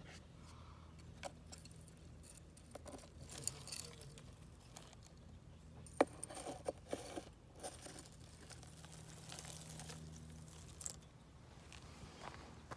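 Scattered sharp clicks and rustling as a folding knife's blade scrapes and taps against a plastic container and stirs dry leaf debris and web, louder about six seconds in. A faint steady low hum runs underneath.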